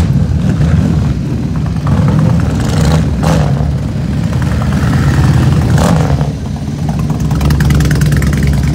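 Several motorcycle engines running as bikes ride slowly past one after another, a cruiser and then a line of sport bikes, with a few short louder bursts of revving.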